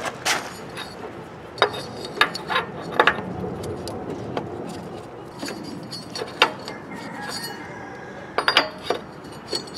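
Scattered light metallic clinks and knocks as a steel belt pulley on a lawn tractor is handled and slid off its shaft while a drive belt is fed around it. A quick cluster of clinks comes near the end.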